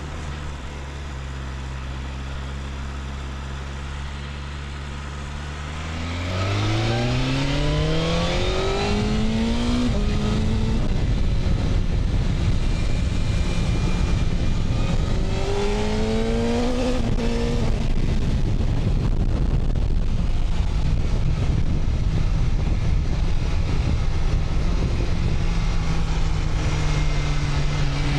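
BMW S1000RR's inline-four engine running steadily, then accelerating hard about six seconds in. The revs climb in a rising whine, dip at a shift, and climb again. It then settles to a steady high-speed run under heavy wind rush.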